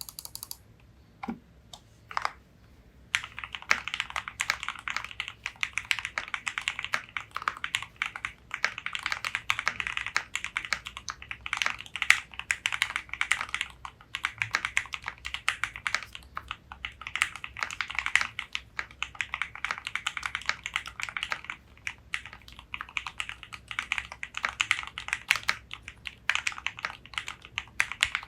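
Typing on a KBDFans Tofu65 custom mechanical keyboard with lubed Gateron Ink Black V2 linear switches, a polycarbonate plate and Cherry-profile keycaps. A few single keystrokes come first, then steady, rapid typing from about three seconds in.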